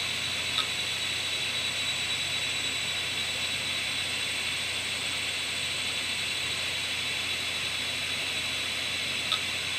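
Opened 6 GB hard drive running with its cover off during a full format: a steady high whine from the two spinning platters and spindle motor. A single click from the head arm comes about half a second in and another near the end.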